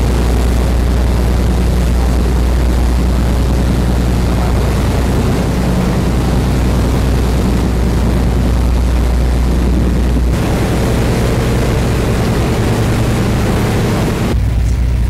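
Warship's engines running with a steady low drone. The drone changes abruptly about ten seconds in and again near the end.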